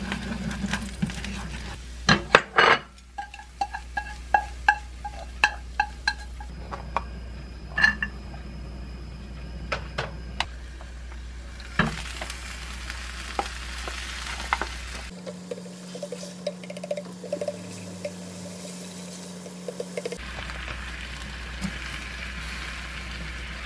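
Chopsticks stirring and tapping in a frying pan while an egg scrambles and sizzles, with a few sharp clicks about two seconds in and a run of light taps after. Later, the pan sizzles as curry sauce and noodles cook in it.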